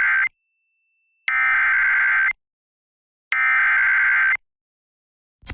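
Emergency Alert System SAME header: raspy digital data bursts about a second long with a second's silence between them, the end of one burst and then two more. This is the coded header, sent three times, that opens a warning broadcast and carries the event type and the affected areas.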